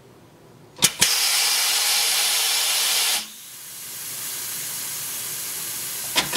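Coats 5030A tire changer with a freshly rebuilt rim clamp air cylinder, worked by its foot pedal. A sharp click of the pedal valve comes about a second in, then a loud rush of compressed air for about two seconds as the clamps move. A softer hiss follows, then another click and a loud air rush near the end.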